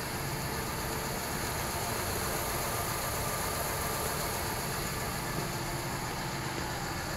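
Steady rumble and hiss with no distinct events.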